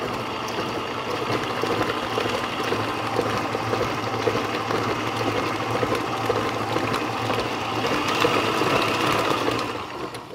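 Breville stand mixer running steadily, its beater churning a thick batter of shredded apple, butter, sugar, egg and flour; the motor cuts off near the end.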